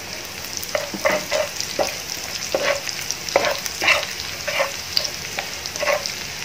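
Shredded lemongrass and red chilies frying in hot oil in a black pan, sizzling steadily, while a metal spatula stirs them, scraping and knocking against the pan at an uneven pace of about twice a second.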